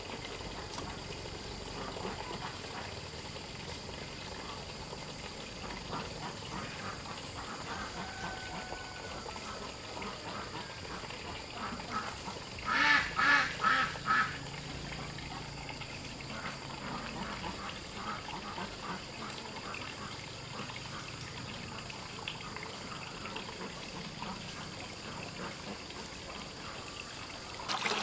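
Ducks quacking: a loud run of about five quacks about halfway through, with fainter calls and clicks over a steady background hiss.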